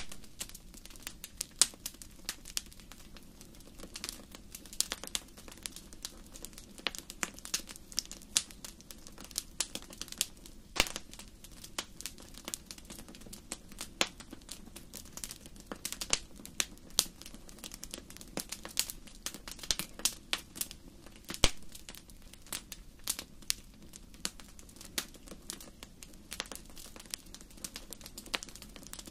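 Wood fire in a fireplace crackling, with dense irregular snaps and a few louder sharp pops.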